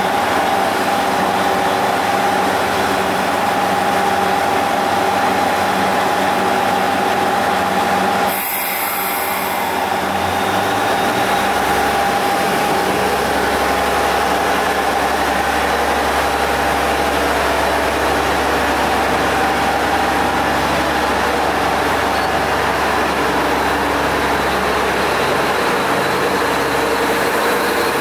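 Diesel engine of a JR Central HC85 hybrid diesel-electric train running at a platform, with steady whining tones. About ten seconds in, a deeper rumble builds as the train section starts to pull away.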